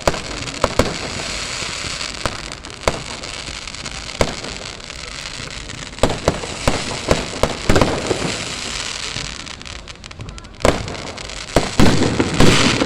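Aerial fireworks display: a steady crackle with scattered sharp bangs. The bangs come thick and fast a little past the middle, and grow louder and closer together near the end.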